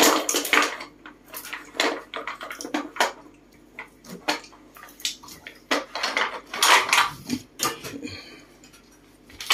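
Wooden blocks clacking against each other and against a small wooden box as a monkey rummages through them, a string of irregular knocks and rattles.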